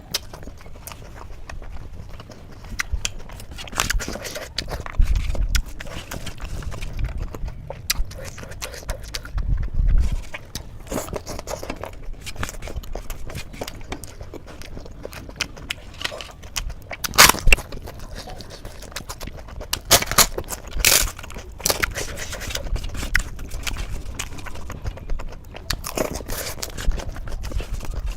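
Close-miked eating sounds: a person chewing soft food, aloo paratha and rice with gravy, with irregular wet mouth clicks and lip smacks. A few smacks past the middle are louder.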